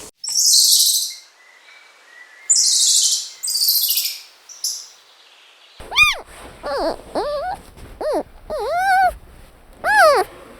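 Bird calls: three harsh, hissing bursts in the first half, then a quick series of short calls that rise and fall in pitch.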